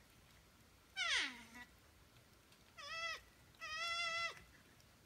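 An unidentified animal up in a tree calling at night: a high cry that slides steeply down in pitch about a second in, then a short held call and a longer held call near the end.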